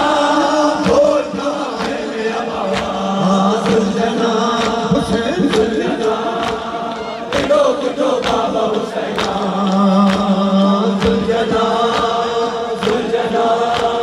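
A group of men chanting an Urdu noha (mourning lament) in unison over a loudspeaker system, with long held notes. Sharp, even strokes of matam (hands striking chests) beat time a little under once a second.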